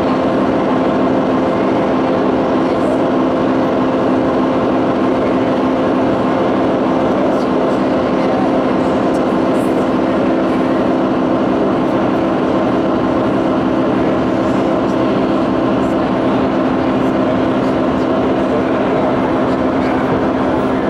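A loud, steady drone of several held tones sounding together, unchanging throughout.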